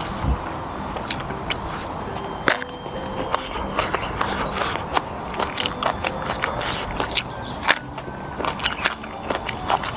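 Close-up crunching bites and chewing of a raw round green eggplant dipped in sambal, with sharp crunchy clicks scattered all through.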